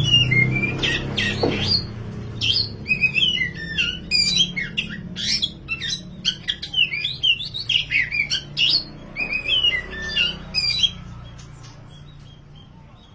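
Black oriental magpie-robin (kacer wulung) singing a fast, varied run of whistles and harsh chattering notes, stopping about eleven seconds in. A low steady hum sits underneath.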